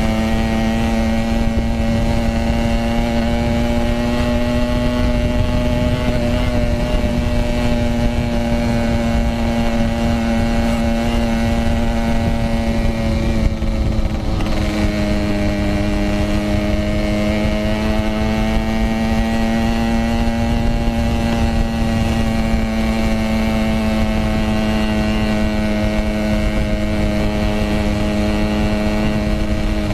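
Yamaha RX-King 135cc single-cylinder two-stroke engine running at steady revs while riding. The revs drop briefly about halfway through, then climb gently and hold.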